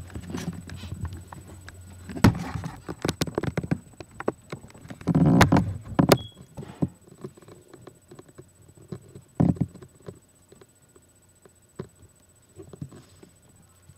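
Cloth and paper-towel bedding rustling in a plastic tub, with knocks and bumps from handling. The loudest bursts come about two and five seconds in, with a single thump near the ten-second mark.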